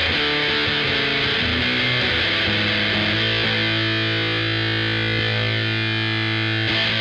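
A Squier VM Jazz played through a Killer Otter Electric Party Animal fuzz pedal into an AC30 amp modeler, giving a thick, heavily distorted fuzz tone. A few short notes come first, then one note rings out and sustains for about three seconds before the playing starts again near the end.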